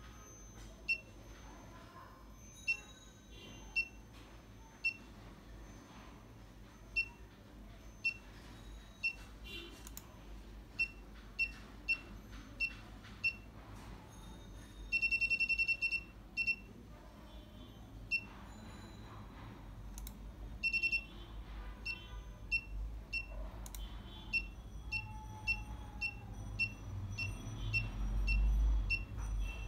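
Small electronic buzzer giving short, high single-pitch beeps at irregular intervals, over twenty in all. Around the middle it holds one tone for about a second, and a few seconds later a shorter one. A low rumble swells near the end.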